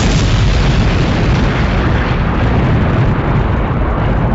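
A loud boom that starts suddenly and rolls on as a long, deep rumble, its upper hiss fading after about two seconds.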